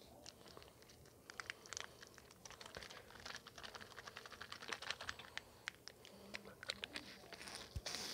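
Faint, irregular clicking and crinkling as a Kool-Aid drink-mix packet is handled in the fingers close to the microphone.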